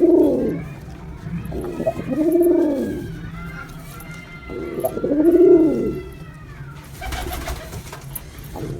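Male pigeon cooing: three drawn-out coos, each rising and falling in pitch, about two and a half to three seconds apart. A short rustling noise follows near the end.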